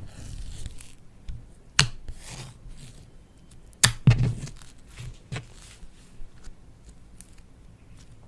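Slime being worked by hand, stretching and squishing with soft tearing sounds and several sharp pops, the two loudest about two and four seconds in.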